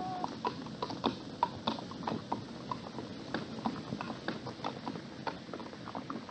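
Hooves of laden pack animals clip-clopping on a stony track, an irregular run of sharp knocks, a few each second.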